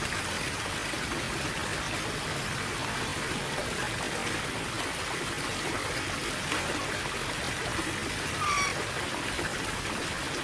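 Steady rush of running water, with one brief bird chirp about eight and a half seconds in.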